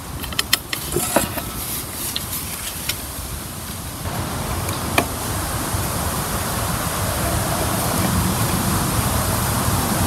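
Several sharp clicks and light knocks as wooden sticks for a buck saw frame are handled, then a steady rushing noise that grows louder, with one more click.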